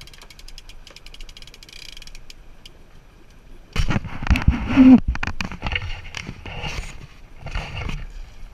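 Big-game fishing reel on a stand-up rod clicking rapidly as the line is worked. From about four seconds in, louder surges of splashing and rushing water as the hooked shark thrashes at the boat's side.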